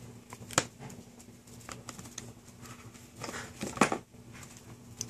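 Soft, scattered rustles and light taps of a toddler handling and turning the pages of a large picture book, with a sharper click about half a second in and a small cluster of louder rustles near the end.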